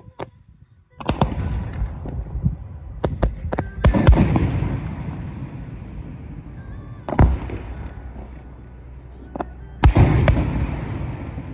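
Fireworks display: aerial shells bursting in a series of sharp bangs, each followed by a long echoing rumble. The bangs start about a second in, come thickest around four seconds in, and again near the end.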